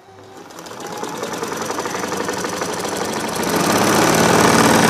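Black Singer Butterfly-type sewing machine, run by its electric motor, stitching a straight seam through the thick layers of a quilted bedcover. It starts up, gathers speed over the first second or so, then runs fast with a rapid even clatter, loudest near the end.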